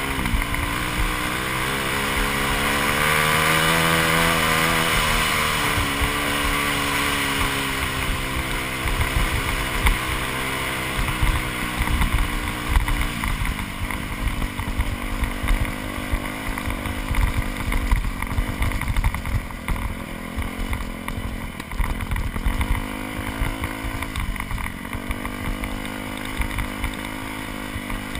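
2001 Yamaha YZ426F's four-stroke single-cylinder engine running under a rider, its revs climbing and falling with the throttle. Many short knocks and rattles mix in through the second half.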